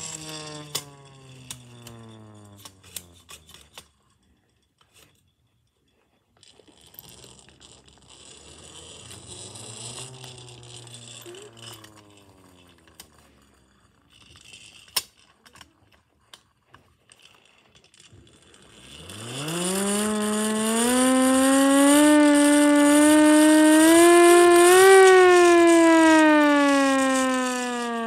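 Small hand-crank air raid siren winding down at first, then quiet for a couple of seconds. Two weak short spin-ups and clicking from the crank follow. About two-thirds of the way through it winds up to a loud wail that wavers slightly as the crank is turned, peaks, and begins winding down near the end.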